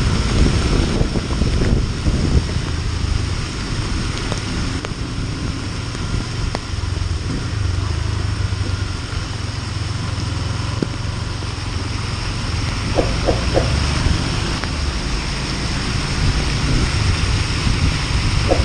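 Honda CB Twister 250F single-cylinder engine running steadily while riding, under a steady hiss of wind and wet-road noise. Three short beeps about thirteen seconds in.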